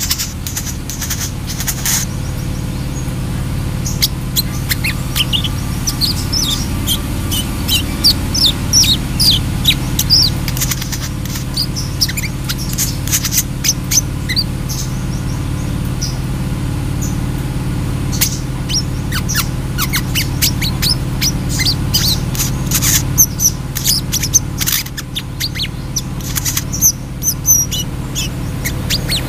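Caged brown-throated sunbird (kolibri kelapa) singing in rapid runs of short, sharp, falling high chirps, with a thinner stretch around the middle. A steady low hum runs underneath.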